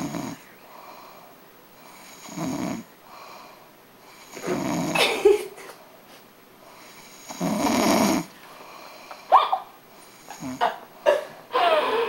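A woman snoring in her sleep through a clogged nose: rough snores every two to three seconds, two longer, louder ones in the middle. Near the end comes a quick run of short snorts.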